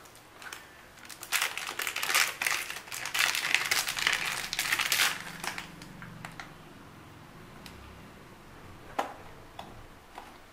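Clear plastic packaging crinkling as it is handled, dense for a few seconds, then a few light clicks near the end.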